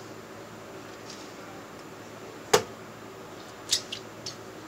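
Sharp knocks and clicks of hand tools and fittings as the water lines are hooked up at the top of a water heater: one loud knock about halfway through, then three lighter clicks close together near the end, over a steady low hum.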